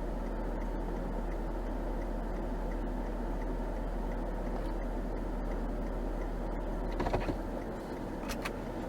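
Steady car noise heard from inside the cabin, with faint regular ticking about twice a second. A short rattling clatter comes about seven seconds in, and two sharp clicks follow a second later.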